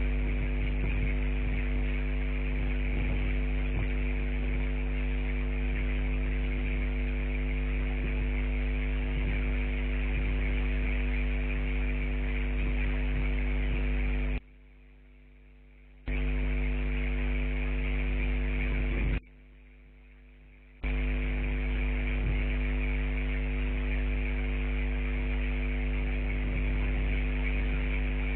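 A steady electrical hum with a buzz, several even tones stacked above a strong low drone, cutting out twice for about a second and a half each, about halfway and two-thirds of the way through.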